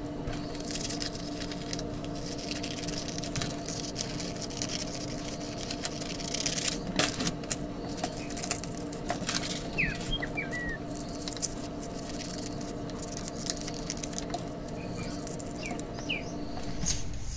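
Scissors cutting through paper: crisp snips and paper rustling, busiest in the middle, over a steady low hum. A few short high chirps come near the middle and near the end.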